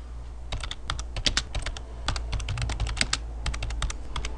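Typing on a computer keyboard: a quick, uneven run of key clicks, several a second, over a low steady hum.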